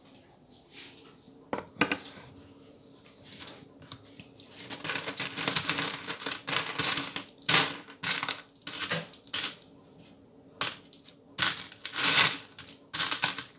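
Loose copper-coloured cent coins being stirred, picked out and dropped in a bowl heaped with change, clinking and jingling irregularly; sparse clinks at first, then a busier run of clinking from about five seconds in.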